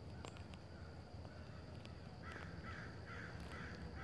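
A crow cawing five times in a row, about two caws a second, starting about halfway through, over a steady high insect trill.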